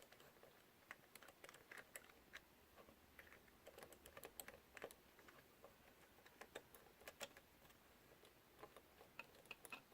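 Faint, irregular small clicks and taps of fingers working a thin ribbon cable and small plastic gimbal parts, a few clicks a second over near silence, with one sharper click at the very end.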